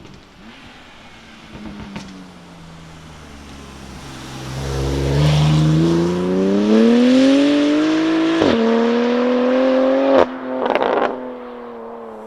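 BMW S55 twin-turbo straight-six, breathing through a titanium equal-length single-midpipe valved exhaust, accelerating hard. The pitch climbs and drops sharply at an upshift about eight seconds in, climbs again, then cuts off on lift-off with a short noisy crackle before settling to a lower drone.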